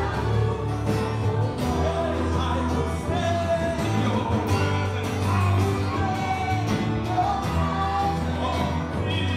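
Live gospel music: singers and a band performing a song, with a steady bass line under the voices.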